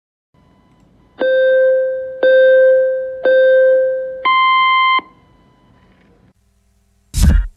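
Electronic countdown beeps: three identical beeps about a second apart, then a fourth beep an octave higher, in the manner of a race-start countdown. Loud electronic music with a heavy beat cuts in near the end.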